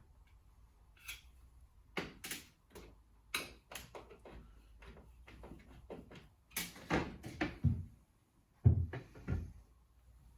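Scattered clicks and knocks from handling tools against a bath screen's wall profile as it is levelled and fixed to the wall, with a few heavier thuds about seven and nine seconds in.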